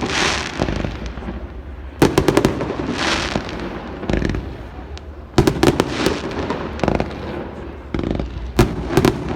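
Aerial fireworks display: clusters of sharp bangs from bursting shells every few seconds, with hissing crackle trailing between them.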